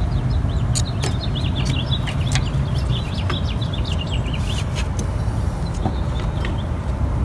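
Small birds chirping in quick, busy runs, thinning out after about five seconds, over a steady low hum, with a few light clicks.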